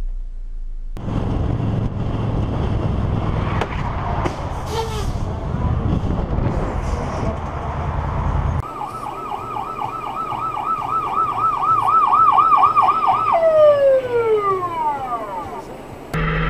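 Motorcycle engine and road noise, then an ambulance siren in a fast yelp, about three warbles a second, for about five seconds. The siren then stops and winds down with a falling tone.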